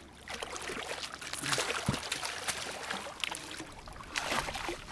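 A hooked sturgeon thrashing at the surface beside the boat, in irregular bursts of splashing water. There is a dull knock about two seconds in.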